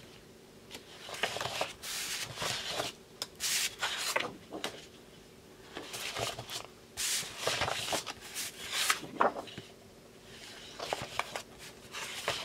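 Large sheets of 30×30 cm patterned paper being slid off a stack one after another, paper rubbing and rustling against paper in several separate strokes.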